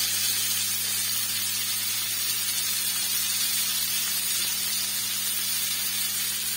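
Flour-coated chicken breast pieces shallow-frying in vegetable oil in a pan: a steady, even sizzle, with a low steady hum underneath.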